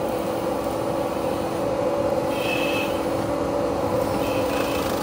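Menzi Muck walking excavator's diesel engine and hydraulics running steadily, with two brief high whines about halfway through and near the end.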